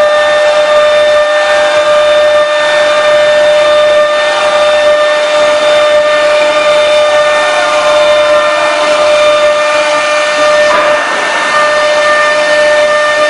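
Air-cooled spindle of a CNC router running at a steady high-pitched whine over a hiss while the bit engraves MDF.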